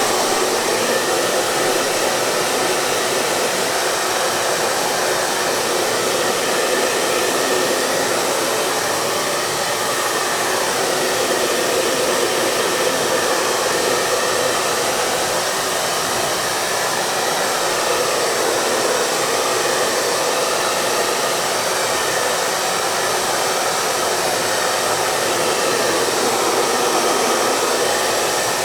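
Hair dryer running steadily: an even, unbroken rush of motor and blown air, with little deep rumble and no change in level.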